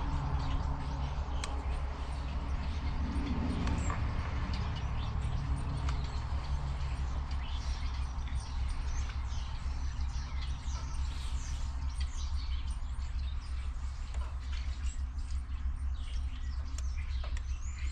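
Birds chirping over a steady low hum, with a few faint clicks.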